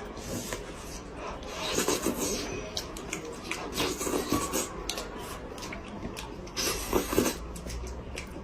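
Close-miked eating sounds: irregular wet chewing, gnawing and scraping as meat is worked off the bones of a cooked head.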